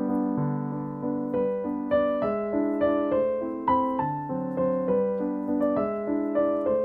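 Background piano music: a melody of struck notes that ring and fade, over lower chords.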